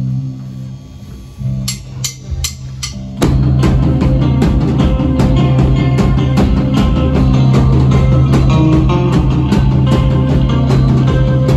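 Live rock band: a held electric-guitar chord rings and fades, a few sharp drum hits land about two seconds in, then the full band crashes in loud at about three seconds with drum kit, bass guitar and electric guitar playing on.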